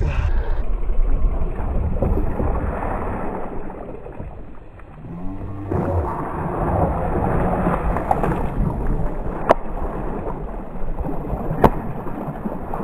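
Hooked red drum thrashing and splashing at the water's surface close to the kayak, over a low rumbling noise. Two sharp clicks in the second half.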